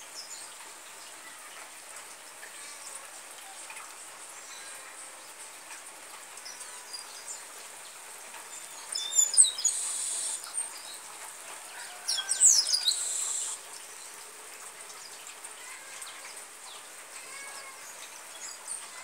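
Steady hiss of rain with birds chirping, and two louder bursts of high bird calls about nine and twelve seconds in.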